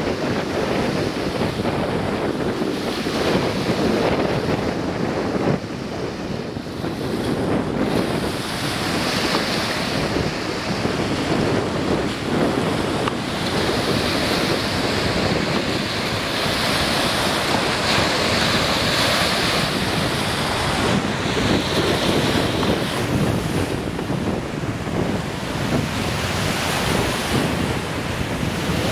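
Small waves breaking and washing up on a sandy lake beach, a steady surf, with wind buffeting the microphone.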